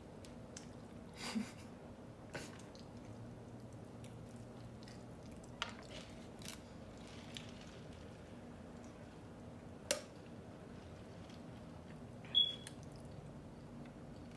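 Sparse eating sounds at close range: half a dozen short, separate clicks and soft squishes of food and mouth, the loudest near the end with a brief squeak, over a faint steady low hum.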